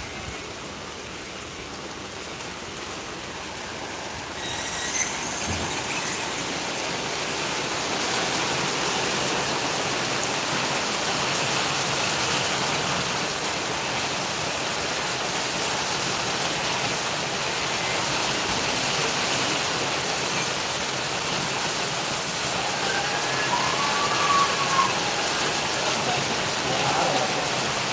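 Steady rain falling on wet paving: a dense hiss that grows louder about five seconds in and stays heavy.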